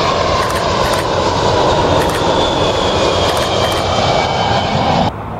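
Jet noise from a British Airways Boeing 767-300ER's Rolls-Royce RB211 engines as it flies low overhead on final approach with gear down: a loud, steady rush with a thin whine that slowly drops in pitch. The sound cuts off abruptly about five seconds in.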